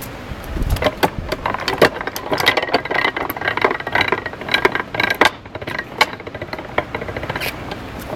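Canal lock paddle gear being wound up with a windlass: irregular metallic clicks and rattling from the cast-iron rack and pinion and its ratchet pawl as the toothed rack rises.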